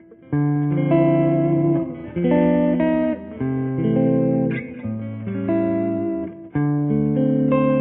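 Electric guitar played through an amplifier on the neck Lace Alumitone pickup in humbucking mode. It plays a series of ringing chords, about one change every second with short breaks between them, giving a full, rich sound.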